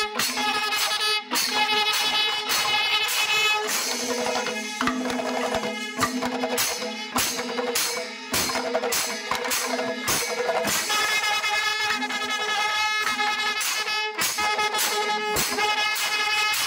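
A Kerala Panchavadyam ensemble playing: kombu, the curved brass horns, blow long held notes that break off and start again every few seconds. Under them run fast, dense strokes of hand-beaten drums and the ring of small cymbals.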